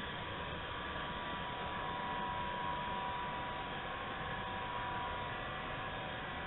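Robot vacuum cleaner's electric motors running with a steady whine.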